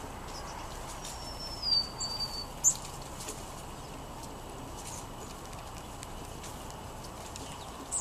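Songbird calls: one thin, high whistle about a second in, drawn out for over a second and falling slightly, with a few short, sharp high chips around it, over a steady background hiss.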